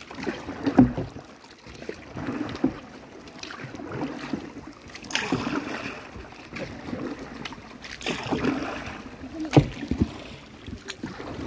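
Kayak paddling: the paddle blades dip and splash in the water in recurring strokes every second or two. A few sharp knocks stand out, the loudest about a second in and near the end.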